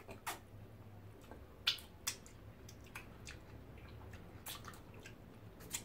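Close wet mouth sounds of people eating soupy food with their fingers: scattered lip smacks, chewing and finger-sucking clicks, the sharpest pair a little under two seconds in.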